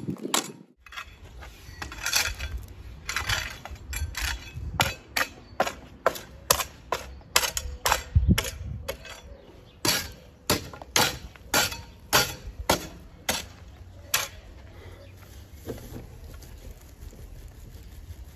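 A long-handled digging tool striking packed dirt again and again, about two strikes a second. The strikes thin out and fade after about fourteen seconds.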